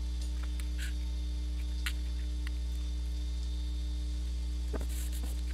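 Steady electrical mains hum on the recording, with a few faint light taps and rustles of a vellum sheet being laid and pressed down onto cardstock.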